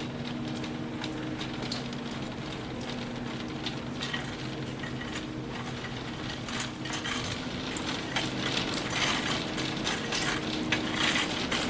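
A steady electrical hum with a stream of light metallic clicks and rattles, which get busier in the second half.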